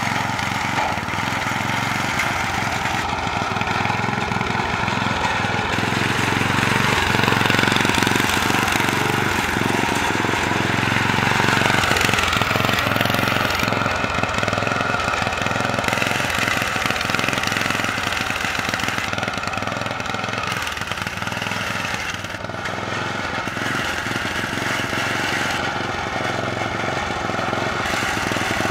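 Riding lawn mower engine running steadily as the mower is driven along, a little louder for a stretch near the middle.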